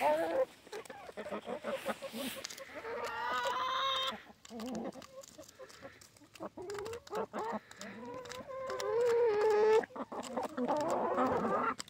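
Backyard hens clucking and calling, with two longer, wavering calls about three and nine seconds in.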